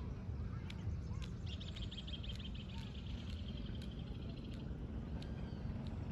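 Birds calling outdoors: a few short chirps near the start, then a rapid high trill lasting about three seconds, over a steady low rumble.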